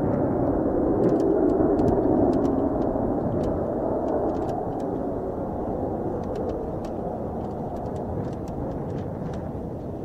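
Mitsubishi F-2 fighter's single turbofan jet engine heard from afar as the jet climbs away after takeoff. The jet noise is loudest in the first few seconds and then slowly fades as it recedes.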